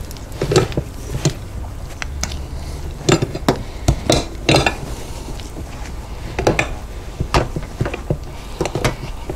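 Spatula scraping cake batter down the sides of a glass measuring cup, with the metal hand beater knocking against the glass: irregular scrapes and clinks.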